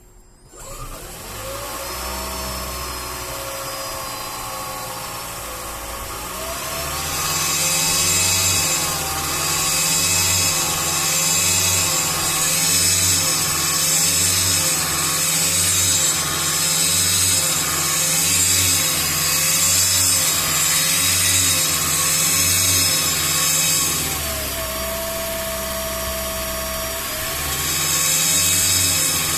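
Toyota Prius third-generation 1.8-litre four-cylinder engine running with a buzzing noise that swells and fades in a steady pulse. It gets louder about six seconds in and eases off for a few seconds near the end before picking up again.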